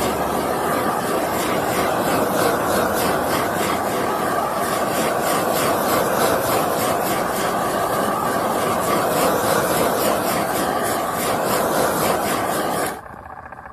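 Handheld propane torch burning with a steady hiss as its flame is swept over wet epoxy to pop air bubbles; it shuts off suddenly near the end.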